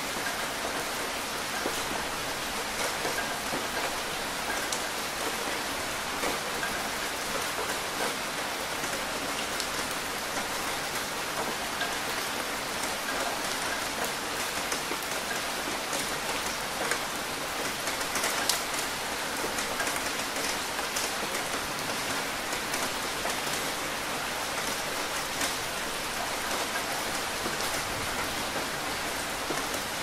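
Steady rain falling, an even hiss with scattered sharper taps of drops, a few of them louder a little past the middle.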